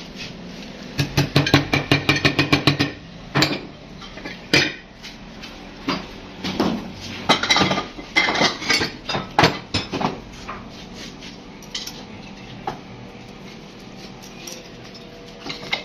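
Metal water-pump parts clinking and clattering as they are handled and set down on a steel workbench: a quick run of ringing clicks a second or two in, then scattered knocks, and quieter toward the end.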